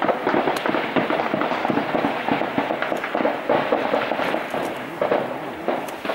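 Heavy small-arms gunfire: a dense, continuous crackle of many overlapping rifle shots with no pause.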